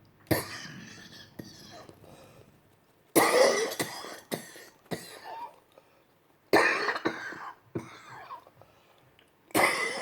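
A woman coughing hard in four bouts about three seconds apart, each starting suddenly, with throat clearing. It is a coughing crisis while she struggles to breathe, which she puts down to leaf debris and dust that a leaf blower blew over her.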